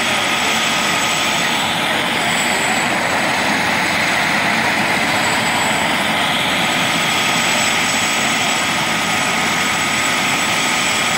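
Small military helicopter running on the ground at idle with its main rotor turning but not lifting off: a steady high turbine whine over the even rush of the rotor.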